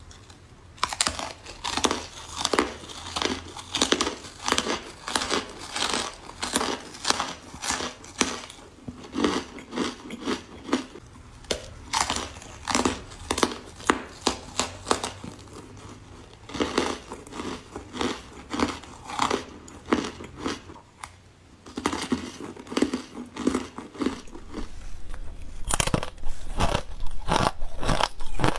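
Ice coated in matcha powder being bitten and chewed close to the microphone: sharp, crisp crunches in quick runs, with short pauses between bites.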